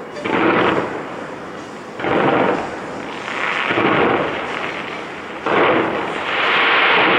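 Fireworks shells bursting in a big aerial display: four heavy booms, one every second and a half to two seconds, each trailing off in an echoing rumble. About six seconds in, they give way to a continuous loud rushing din.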